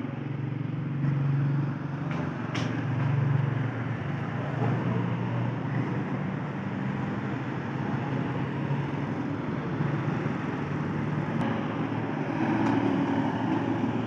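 Steady low rumble of motor-vehicle engines and road traffic, with a couple of faint sharp ticks.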